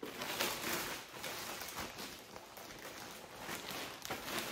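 Irregular rustling and handling noise, rising and falling without a beat, as purchases are unpacked.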